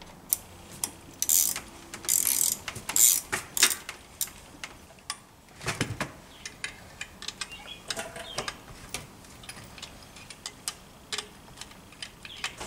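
Metal clicking and clinking of hand tools and parts as a Motobecane AV7 moped engine's crankcase is put together, with short rasping bursts in the first few seconds and a heavier knock about six seconds in.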